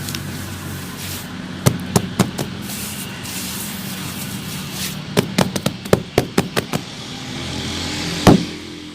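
Sharp cracks and crunches of sand-cement chunks breaking and crumbling. They come in two quick clusters, with one loudest crack near the end, over a steady low hum.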